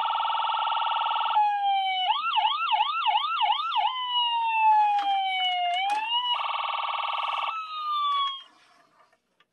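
A Toy State police helicopter toy plays its electronic siren sound effect. It cycles through a fast buzzing warble, a run of quick rising whoops about three a second, and long falling and rising wails, with a couple of faint clicks midway, then stops shortly before the end.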